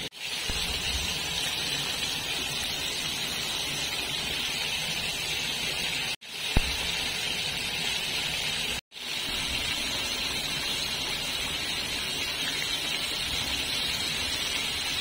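Flour-coated chicken pieces deep-frying in hot oil, a steady sizzle of bubbling oil. It cuts out abruptly twice, and a short sharp pop comes about six and a half seconds in.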